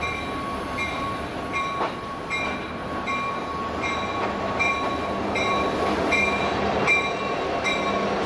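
Southern Pacific freight train's diesel locomotives passing close by, engines running and wheels rolling on the rails. A bell rings steadily over it, about three strikes every two seconds.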